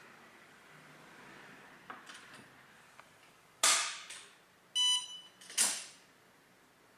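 A door or window fitted with a Wi-Fi magnetic contact sensor being worked: a few light clicks, then a loud sharp clatter, a short electronic beep that signals the sensor being triggered, and a second clatter just after.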